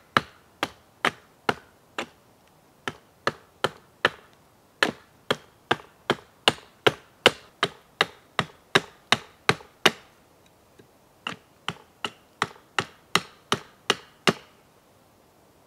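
Small axe chopping a hardwood blank held upright against a log: sharp wooden chops about two to three a second, with a brief pause about two thirds of the way in, stopping shortly before the end.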